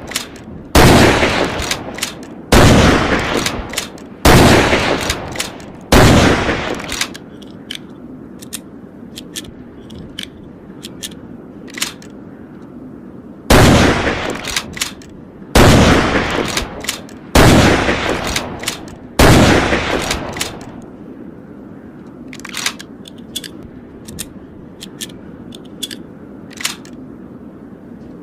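M1903A4 Springfield bolt-action .30-06 sniper rifle fired eight times, in two strings of four shots about two seconds apart, each report ringing out for about a second. Between the strings, and after the last shot, there are only fainter sharp clicks.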